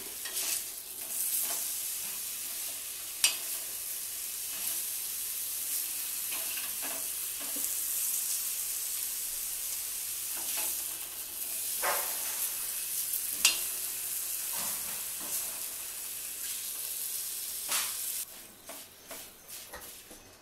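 Paneer slices sizzling as they fry on a hot iron tawa. A metal spatula clicks against the pan a few times as they are turned. The sizzle drops away near the end.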